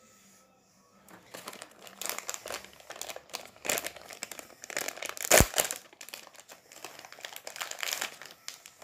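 Plastic wrapper of a trading card pack crinkling as it is handled and torn open, with one sharp snap about halfway through.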